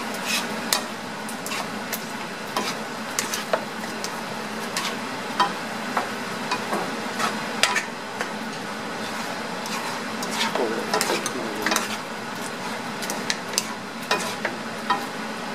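A wooden spatula and a plastic spoon stir and toss vegetables in sauce in a nonstick frying pan, knocking and scraping against the pan at irregular moments. The vegetables sizzle steadily underneath.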